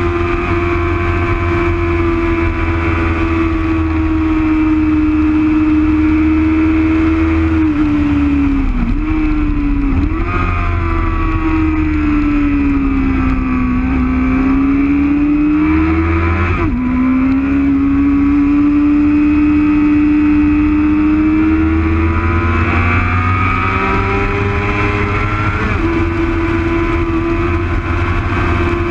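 Sport motorcycle engine running hard at high revs, heard from an onboard camera with wind buffeting the microphone. The engine note sags and climbs through the corners, with sharp pitch jumps at quick gear changes about a third of the way in and just past halfway.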